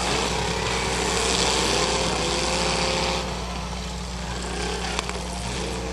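Demolition derby cars' engines revving hard, their pitch rising and falling over a rushing noise for about three seconds, then easing to a rougher run. A single sharp knock comes about five seconds in.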